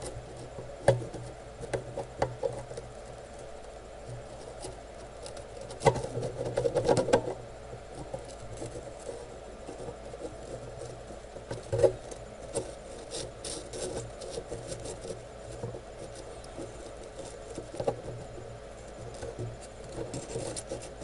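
Small scratching, rubbing and tapping of a soldering iron tip pressing desoldering braid against a circuit board to soak up solder, with a denser stretch of rustling about six to seven seconds in and a sharp tick near the middle. A low steady hum sits underneath.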